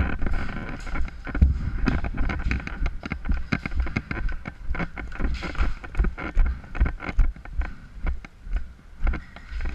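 Knocks and rustles of a player on the move with a body-worn camera, with wind rumbling on the microphone; in the second half the knocks fall at about two a second, like steps.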